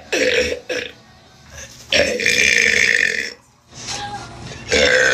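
A woman burping loudly. A short burp comes right at the start, then a long burp about two seconds in that lasts over a second, and another loud burp begins near the end.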